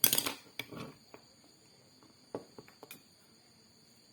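Handling noise from the MC4 connector and cable: a rustle and knock at the start, another just under a second in, then a few small sharp clicks. Under it runs a steady high insect trill.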